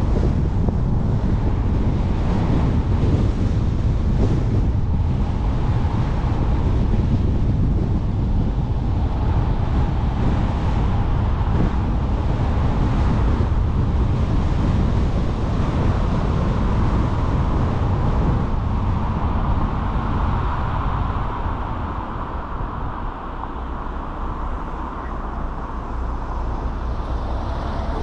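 A car being driven on the road, with steady tyre and road noise and wind rush over the microphone. The noise eases a little about three-quarters of the way through.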